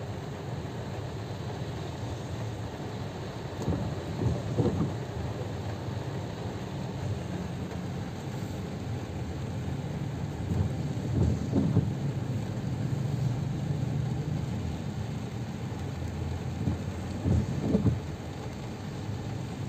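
Steady rain on a car's roof and windscreen, heard from inside the cabin, with the windscreen wipers on an intermittent setting sweeping three times, about every six to seven seconds.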